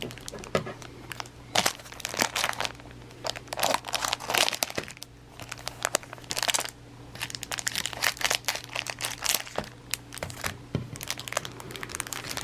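Irregular crinkling and rustling of a cellophane rack-pack wrapper and cardboard 1988 Donruss baseball cards being handled and sorted by hand.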